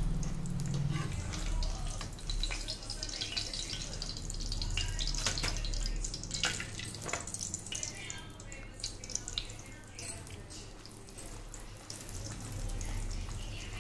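Stale roti deep-frying in hot desi ghee, puffed up and sizzling steadily with many small crackles and pops.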